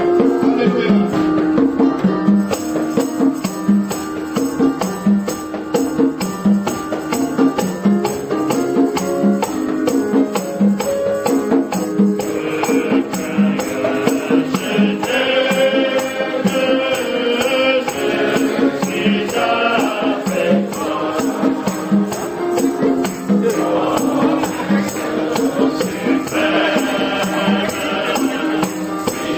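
Praise hymn music: a group of voices singing over a steady beat, with quick, regular percussion ticks like a tambourine or shaker. The singing comes in strongest from about halfway through.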